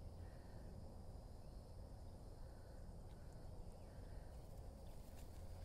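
Near silence: faint outdoor ambience, a steady low rumble with a faint high insect hum and no distinct events.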